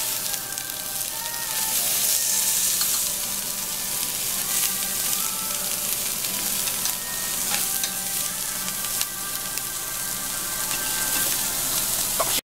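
Pieces of aged beef sizzling steadily on a charcoal-fired tabletop grill plate, with a few sharp metal clicks from tongs and scissors; the sound cuts off suddenly near the end.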